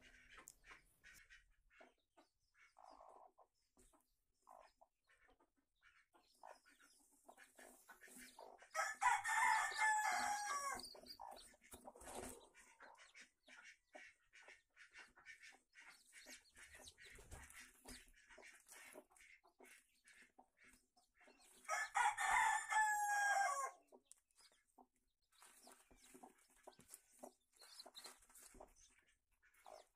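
Rooster crowing twice, each crow about two seconds long and about thirteen seconds apart, with faint hen clucking in between.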